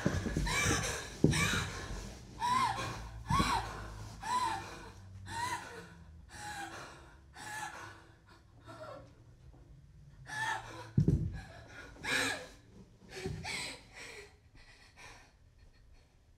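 A frightened woman gasping and whimpering, short ragged breaths with a voice in them about once a second, fading and spacing out toward the end. A dull thud comes about eleven seconds in.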